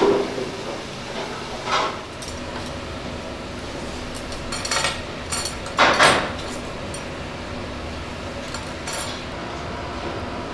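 Kitchen clatter over a steady rushing hiss: a ladle and dishes knock and clink against each other now and then, with a sharp clunk at the very start and the loudest clatter about six seconds in.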